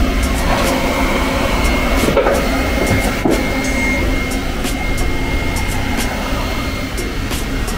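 Steady machine whir with a faint high whine, with light clicks and knocks as the arms of a water-cooled spot-welding gun are handled and positioned.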